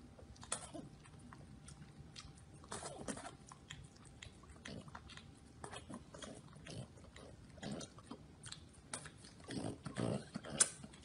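French bulldog licking and smacking at an ice pop, irregular wet lapping and mouth smacks, coming thicker near the end.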